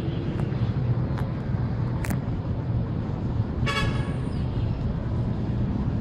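Steady low rumble of town traffic from the streets below, with a vehicle horn tooting once, briefly, about four seconds in. A short sharp click comes about two seconds in.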